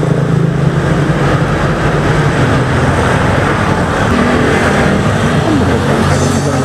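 Motorcycle engine running at a steady speed, with a slight change in its note about four seconds in.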